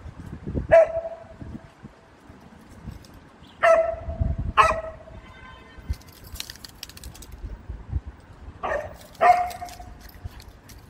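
Samoyed barking: five deep barks, each with a short drawn-out tail. One comes about a second in, a pair near four seconds and another pair near nine seconds.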